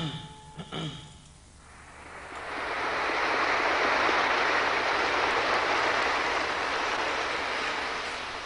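Audience applauding. The clapping swells up about two seconds in and slowly dies away near the end, just after the last notes of a short musical intro.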